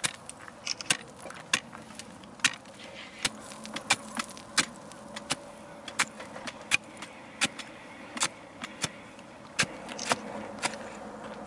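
Hand ice auger being turned into thick lake ice, its blades cutting with sharp, irregular crunches and cracks, several a second at times, over a faint scraping of ice chips.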